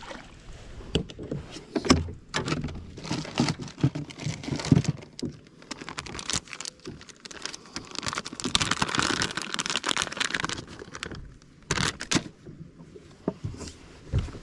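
Irregular knocks, clicks and rattles of handling on a boat, with a few seconds of rushing, hissing noise a little past the middle.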